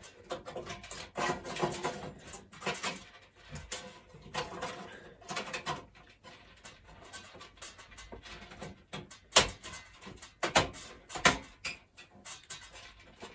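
Thin stamped-metal I/O shield being worked out of and refitted in the PC case's rear opening: irregular clicks, scrapes and rattles of sheet metal, with a few sharp snaps between about nine and eleven and a half seconds in.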